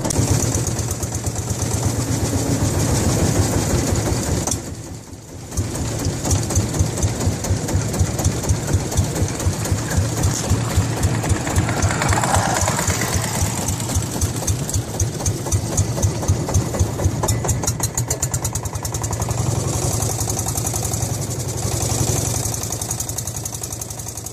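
Long-tail boat's engine running steadily with a rapid, even pulse; the sound briefly drops away about five seconds in.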